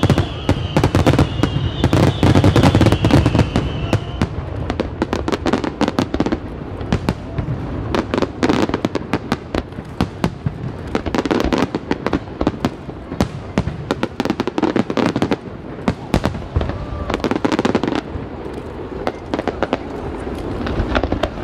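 Aerial fireworks going off in rapid, irregular succession: many sharp bangs and crackles, heaviest and loudest in the first few seconds, with a high wavering whistle over the opening seconds.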